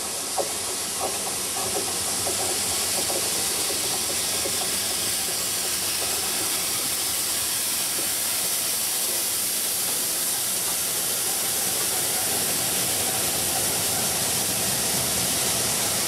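GWR Castle class 4-6-0 steam locomotive 5029 Nunney Castle running through at speed with its train of coaches: a steady rushing steam hiss that grows slowly louder as it approaches and the coaches roll past, with a few light clicks in the first two seconds.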